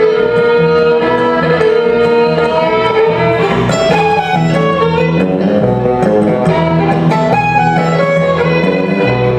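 Live country fiddle music: two fiddles bowing a tune together over electric guitar accompaniment.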